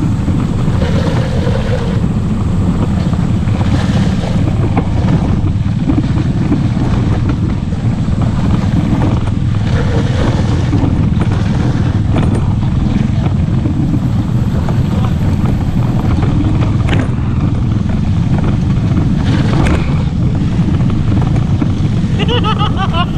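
ATV engine running steadily while riding, with wind buffeting the microphone and a few sharp knocks.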